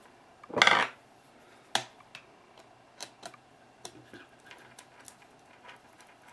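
Hand tools and small suspension parts being handled: a loud clatter about half a second in, then a sharp click and a scattering of light clicks and taps.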